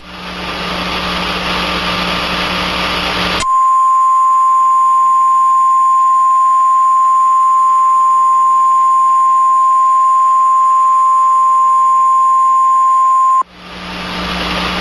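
Emergency alert broadcast of a tornado warning: radio hiss with a low hum, then about three seconds in the single steady 1050 Hz NOAA Weather Radio warning alarm tone sounds for about ten seconds and cuts off, leaving hiss again.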